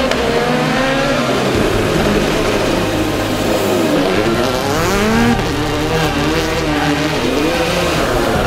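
Hyundai i20 WRC rally car's 1.6-litre turbocharged four-cylinder engine revving hard as the car passes close by. Its pitch climbs and drops again and again with gear changes and lifts.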